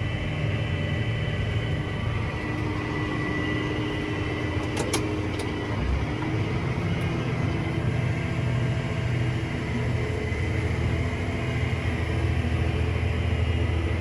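Vehicle engine running steadily on the road, with a brief double click about five seconds in and a change in the engine note about a second later.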